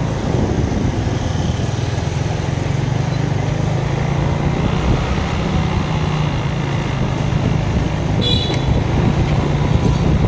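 Motorbike on the move: a steady low engine hum under wind and road noise, with city traffic around. A short high-pitched beep about eight seconds in.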